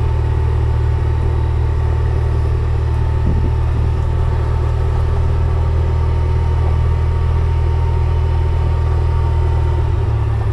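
Kubota RTV520 utility vehicle's engine running steadily under way: a deep, even hum with a thin steady whine above it.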